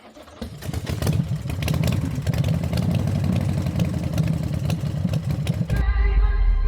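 A motorcycle engine running, getting louder over the first second. Near the end it gives way to music with held notes.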